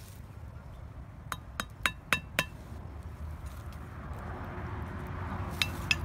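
A quick run of five sharp clinking taps with a brief ring, about a second in, then three more near the end, over a low steady hum.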